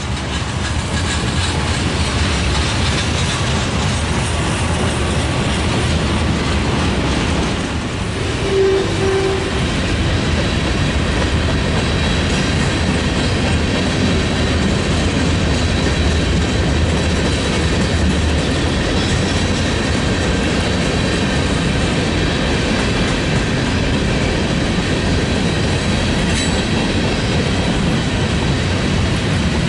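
Freight train rolling past: steady rumble of railcar wheels on the rails with clickety-clack over the rail joints. Two short tones sound close together about nine seconds in.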